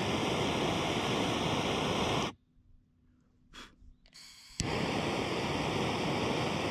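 Butane torch lighter hissing as its jet flame burns the cut end of a rope to seal it. It lights with a click and hisses steadily for about two seconds, shuts off, then clicks and hisses again a couple of seconds later.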